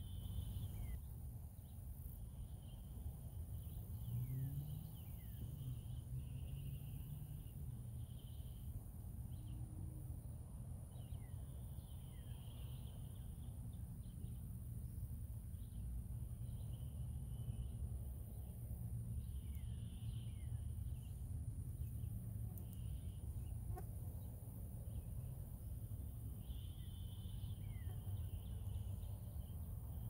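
Natural outdoor ambience: birds calling in short repeated phrases every second or two, with quick falling whistled notes, over a steady high-pitched drone of insects and a constant low rumble.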